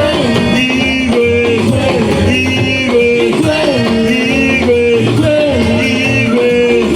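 Live church praise music: singing over instruments, with a melodic phrase that repeats every couple of seconds over a steady beat.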